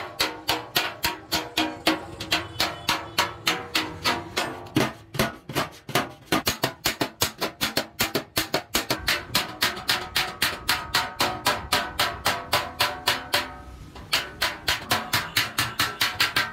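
Hand hammer striking a sheet-metal milk can against a steel rail, quick steady blows about four a second, each with a metallic ring. The blows pause briefly about fourteen seconds in, then resume.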